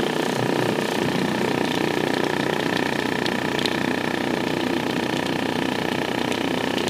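Subwoofer driven hard by a low tone of about 40 to 60 Hz, its cone buzzing steadily as a blob of cornstarch-and-water slurry bounces on it.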